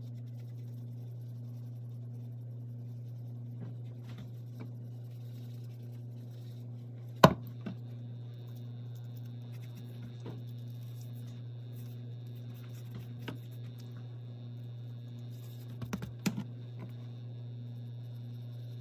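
Steady low hum with scattered handling noises from spice shaker bottles: a sharp click about seven seconds in, the loudest sound, and a few smaller clicks and taps near the end, as plastic flip-top lids are snapped and bottles set down on the counter.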